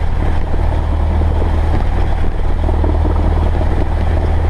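Cessna 172S's four-cylinder Lycoming IO-360 engine and propeller idling steadily on the ground just after start, with a deep, even drone.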